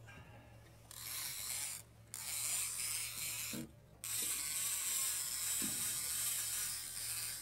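Fishing reel's drag ratcheting as a hooked fish pulls line off against the bent boat rod, in three runs that start and stop abruptly: the fish is taking line.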